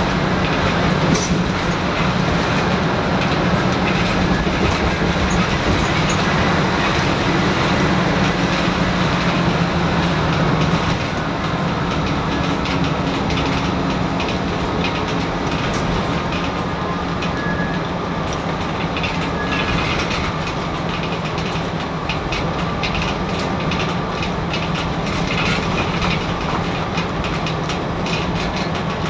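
Scania N94UD double-decker bus's five-cylinder diesel engine pulling at speed, heard from the upper deck along with road noise and rattling of the seats and fittings. The engine drone eases off a little about eleven seconds in.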